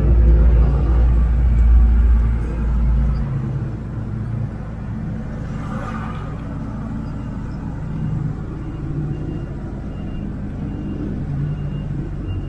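4x4 jeep driving: steady engine and road rumble, much heavier for the first three seconds, then settling to an even drone.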